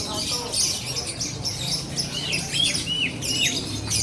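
Lovebirds chirping and chattering in dense, high-pitched bursts, with a run of short downward-sweeping chirps in the middle.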